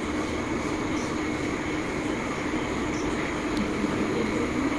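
Steady mechanical whir with a faint low hum and no change in level, with soft faint ticks about once a second.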